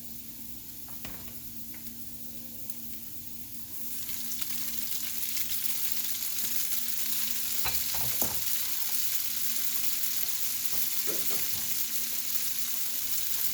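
Garlic sizzling in hot oil in a frying pan; about four seconds in the sizzle gets louder and brighter as the noodles go into the pan. A few utensil knocks follow as they are stirred.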